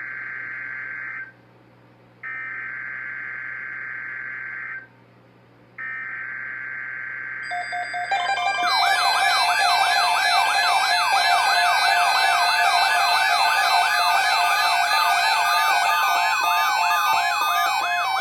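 Emergency Alert System data header: three bursts of buzzing digital data tones separated by short gaps. Then a loud siren-like alert tone starts, with fast, repeating rising-and-falling sweeps over steady tones, signalling the start of a new emergency alert, here a severe thunderstorm watch.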